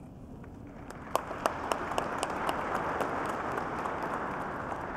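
An audience applauding. It starts about a second in with a few sharp claps, fills out into steady clapping, then eases off slightly toward the end.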